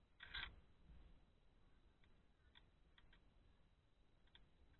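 Faint handling of a car seat belt retractor: a short rustle of belt webbing just after the start, then a few light, scattered clicks from the retractor.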